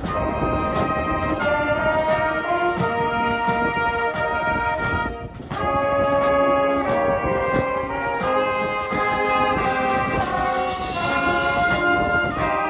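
Brass band playing outdoors: sustained brass chords over a drum kit keeping a steady beat, with a short break in the music about five seconds in.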